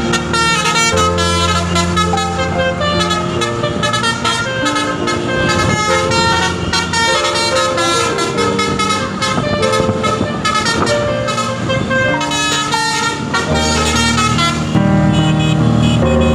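Bus basuri multi-trumpet air horn playing a fast melody, its notes stepping quickly from pitch to pitch with several tones sounding together.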